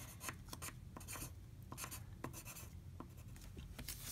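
A soft No. 2 pencil scratching on paper in many short, quick strokes as lines are ruled along a plastic ruler edge.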